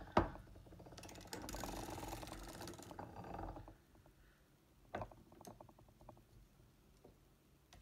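Foster Victoria vintage hand-cranked circular sock machine knitting a row of a short-row heel: a rapid clatter of latch needles ticking through the cams for about two seconds. A sharp click comes near the start, and a second click about five seconds in is followed by a shorter run of ticking.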